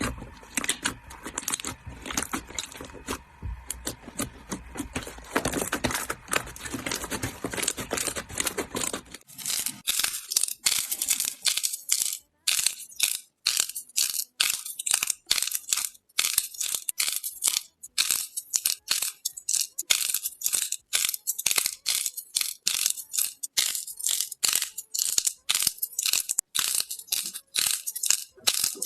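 Slime being squeezed and worked by hand, a dense even crackle at first. From about a third of the way in it turns to a quick, uneven run of sharp crisp clicks and pops, like crunchy slime being pressed.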